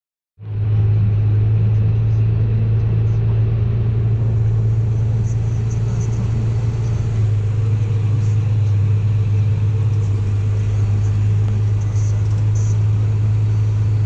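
Steady low drone of a New Holland tractor's engine heard from inside its cab while driving. It cuts in abruptly just after the start and holds level throughout.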